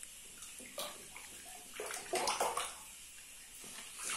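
Bath water splashing and sloshing in a bathtub around a small child, in a few short splashes, the loudest a little past the middle, over a faint steady hiss.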